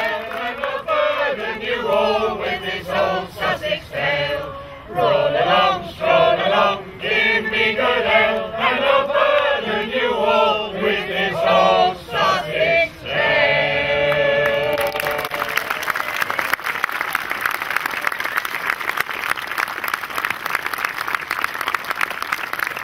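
Mixed men's and women's voices singing a song together in chorus, with a fiddle playing along. The song ends on a long held chord about thirteen seconds in, and a couple of seconds later the audience breaks into steady applause.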